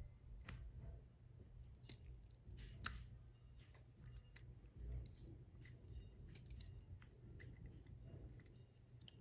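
Faint, scattered small clicks of a precision screwdriver and needle-nose pliers working a tiny screw into a plastic drone landing-gear leg, the clearest click about three seconds in.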